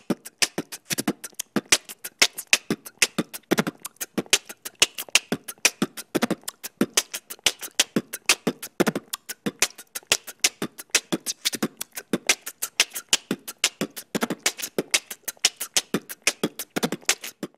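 Background music: a fast beat of dry, clicking percussion hits, several a second, with deeper hits now and then.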